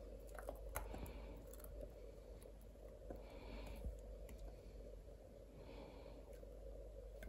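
Faint light taps and clicks of a wooden spoon against a metal pot and a plastic funnel, with a few soft scrapes, as thick fig jam is pushed down into a glass jar. A low steady hum runs underneath.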